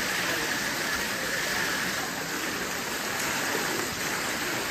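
Steady rush of running river water at a natural swimming pool, an even hiss without breaks.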